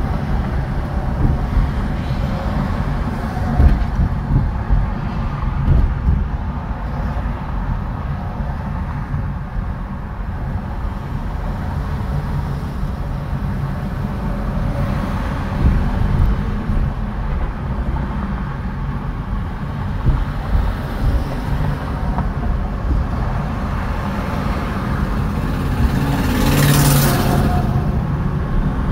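Steady low rumble of road and engine noise inside a car's cabin in slow, heavy highway traffic. Near the end a brief hiss rises over it.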